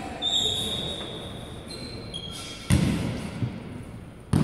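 A basketball bounced twice on the sports hall's wooden floor, two hard thuds about a second and a half apart, ringing in the large hall. Before them comes a thin, high squeak lasting over a second that steps in pitch.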